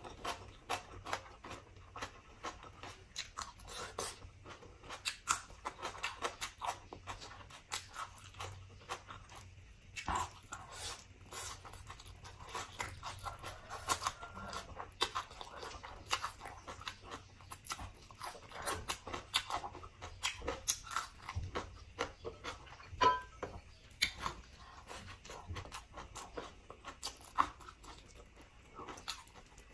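Close-up eating sounds: chewing pork leg and crunchy raw vegetables, with irregular wet mouth clicks, smacks and crunches.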